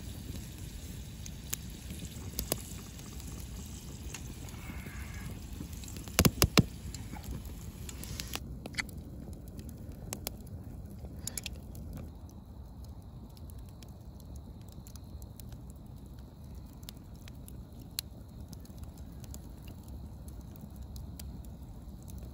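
Wood fire burning under cast-iron Dutch ovens: a steady low rush with scattered sharp crackles and pops, and a quick cluster of loud clicks about six seconds in.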